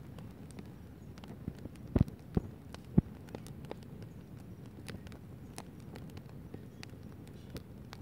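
Wood campfire crackling: a steady low rush of burning logs with scattered sharp pops, and three louder pops in quick succession about two seconds in.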